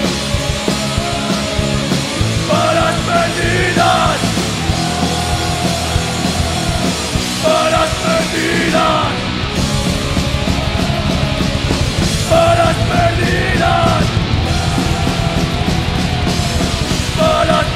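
Heavy metal band playing live at full volume, with drums and guitars under a singer who shouts a vocal line about every five seconds.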